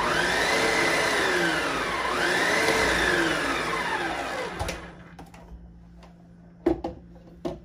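Food processor running on a blender motor base, creaming softened butter with thyme and lemon zest. Its motor whine rises and falls twice with the load, then stops a little under five seconds in. Two short plastic knocks follow as the lid is taken off.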